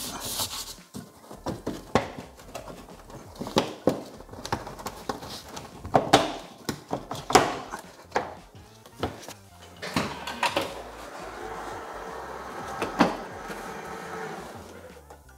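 Irregular sharp plastic clicks and knocks of bumper trim and clips as the BMW X5's rear bumper cover is pulled away from the body, with a softer stretch of rustling and handling near the end.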